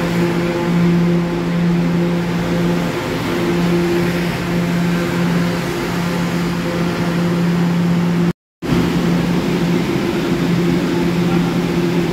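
Subway train at the platform: a steady low electrical hum with a couple of higher overtones over a wash of noise. The sound cuts out for a moment about eight seconds in.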